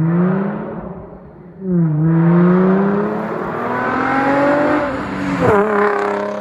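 Infiniti G35's VQ 3.5-litre V6 revving loudly through cat-delete test pipes. It rises briefly, dips, then climbs steadily in pitch for about three seconds before the revs drop sharply near the end.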